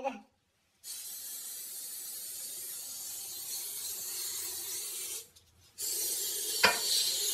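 Aerosol cleaner can spraying in one long continuous hiss of about four seconds, then, after a short break, spraying again; a single sharp knock near the end.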